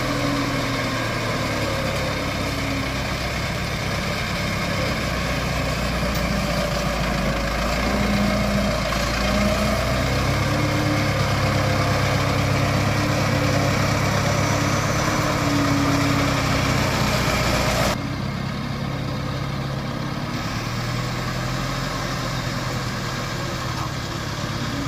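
A custom-built truck's engine running steadily under way at low speed, its note wavering a little, with an abrupt change in the sound about three-quarters of the way through.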